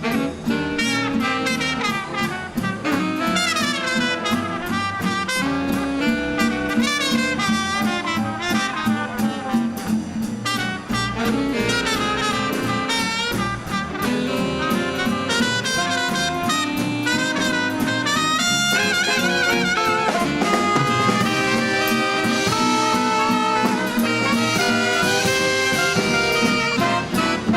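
A live swing-era dance band playing an instrumental jazz number: trumpets, trombone and saxophones carrying the tune over drums, string bass, guitar and piano.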